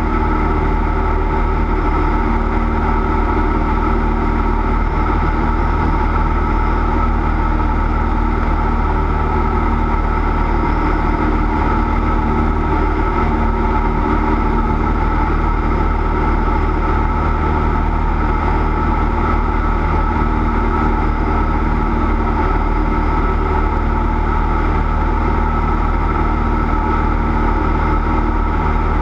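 Cessna 172's four-cylinder piston engine and propeller droning steadily at constant power, with no change in pitch or level.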